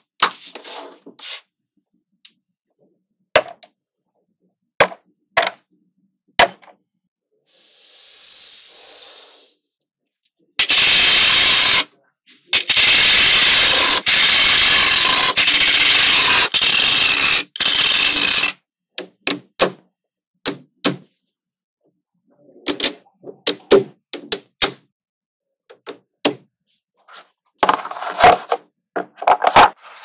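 Small magnetic balls clicking as they snap together, in sharp separate clicks. About ten seconds in comes a loud, dense clatter of many balls, lasting some eight seconds with two short breaks, as rows of balls are slid off a clear plastic sheet into place.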